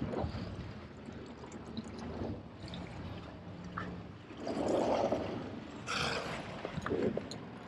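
Sea water sloshing and gurgling, swelling and falling irregularly, with a few light knocks.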